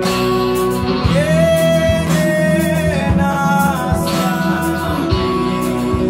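Live rock music: a man singing long held notes over electric guitar chords.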